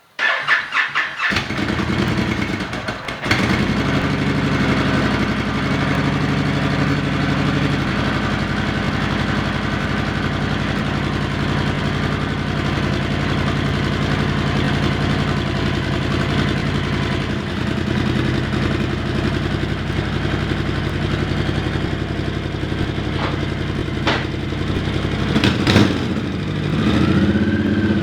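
Honda Fury motorcycle's V-twin engine started on the electric starter, catching after about a second of cranking, then idling steadily, briefly louder near the end.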